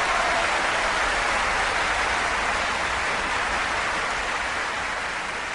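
Steady rush of a waterfall, a dense even hiss of falling water, easing slightly toward the end.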